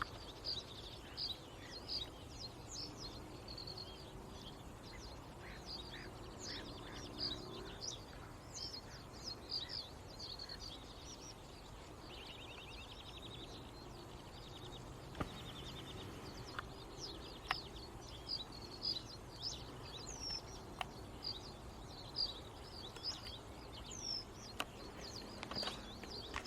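Several birds chirping and calling, with short high calls coming several a second and a rapid trill about twelve seconds in. A few faint clicks are scattered through.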